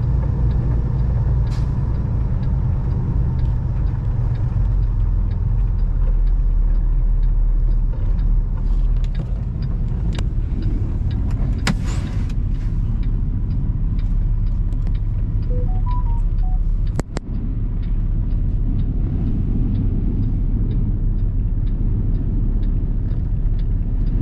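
Semi-truck's diesel engine running steadily, heard from inside the cab as a low hum, with scattered light clicks and rattles. A few short electronic beeps sound about two-thirds of the way through.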